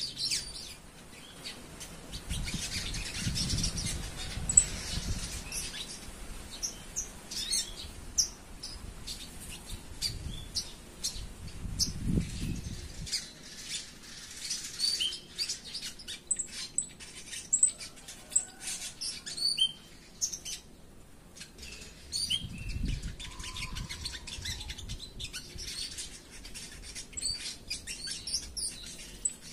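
Young caged sogon (brown-throated sunbird) twittering in many short, high, quick chirps, the 'ngeriwik' call of a bird just starting to come into song, with attempts at fuller 'ngobra' phrases. Wild tree sparrows chirp in the mix, and a few low rumbles come and go.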